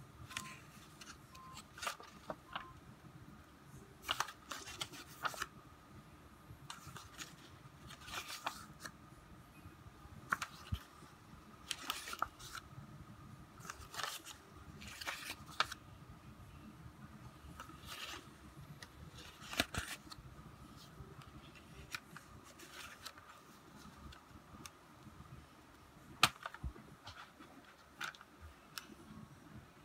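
Paper CD insert booklet being handled and its pages flipped, with soft rustles and occasional clicks against the plastic jewel case at irregular intervals; one sharper click comes near the end.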